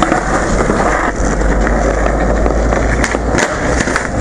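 Skateboard wheels rolling over stone paving slabs, a loud gritty rumble, with a few sharp clacks between about three and four seconds in.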